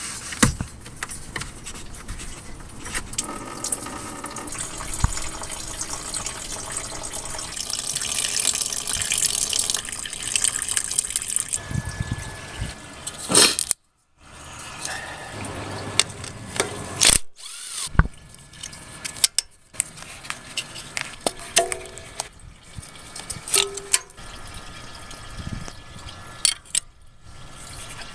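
Engine coolant running out of the Camry's opened radiator drain cock, a steady splashing stream that grows louder partway through. About halfway, after a break, it gives way to scattered sharp metal clicks and knocks of a wrench at work on the alternator bolts.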